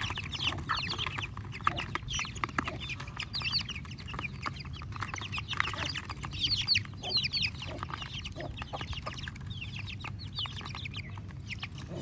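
Aseel chicks peeping over a feed of boiled egg: a constant stream of short, quickly falling chirps from many birds at once.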